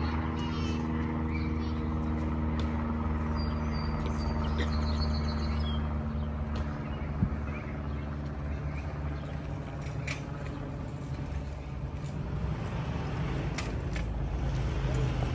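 Steady low mechanical hum holding several even pitches without change, like an engine running at idle, with a few faint high chirps about four seconds in.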